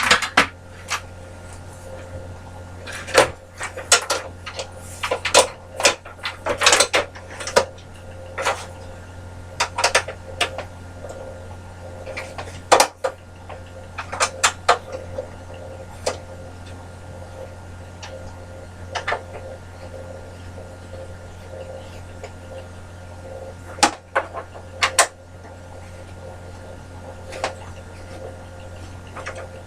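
Scattered clicks, taps and knocks of the bandsaw's parts being handled and adjusted by hand while a new blade is fitted, irregular and bunched into short flurries, over a steady low hum.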